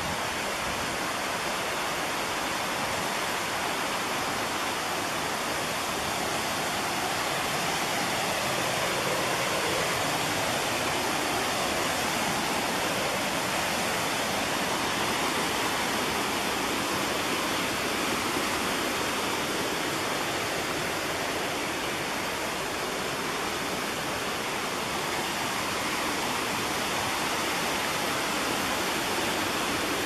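Rushing water of a small creek waterfall cascading over rocks: a steady rush that swells a little in the middle.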